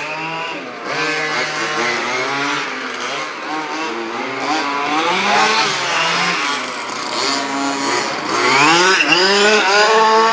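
Two-stroke petrol engines of several 1:5-scale HPI Baja 5B radio-controlled buggies revving and backing off as they race, their pitch rising and falling at the same time. They get louder near the end, with the pitch climbing.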